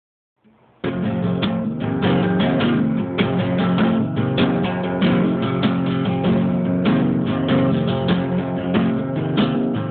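Guitar playing a quick run of plucked notes that starts about a second in.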